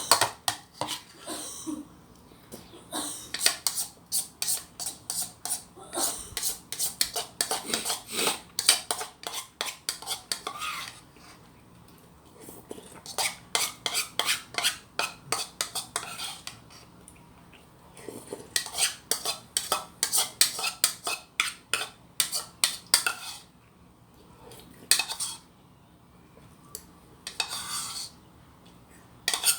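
Spoon clinking and scraping against a rice cooker's inner pot while scooping food, in quick runs of strokes separated by short pauses.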